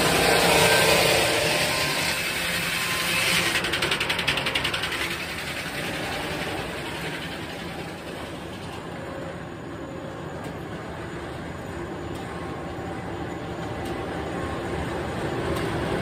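A 700-horsepower, 56-inch circular headsaw cutting through a log, loudest in the first few seconds with a fast rattle about three to five seconds in. After the cut it drops to the lower steady running of the saw and mill machinery, then builds again near the end.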